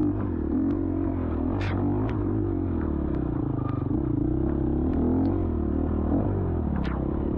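Dirt bike engine running under changing throttle, its pitch rising and falling, with scattered sharp clacks from the bike working over rough trail.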